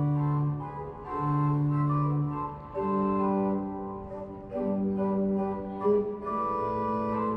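Pipe-organ-style music from the Ankeruhr clock's mechanical performance: slow, held chords, each lasting about a second before the next one sounds.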